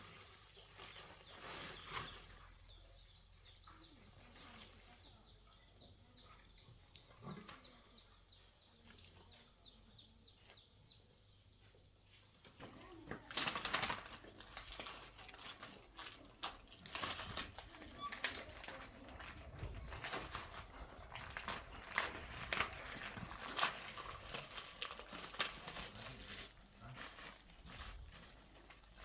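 Faint, irregular clicks and knocks of hand tools on metal parts, starting about halfway through and coming thick and fast after a quiet first half.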